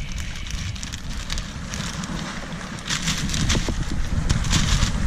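Wind rumbling on the microphone, with a plastic bag crinkling as it is handled, in short crackly rustles over the second half.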